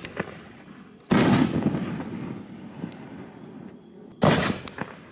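Consumer artillery shells (5-inch Nishiki Blast) being fired: a shell bursts about a second in with a loud boom that rolls off slowly. A little after four seconds the next shell thumps out of its mortar tube, followed by a few small cracks.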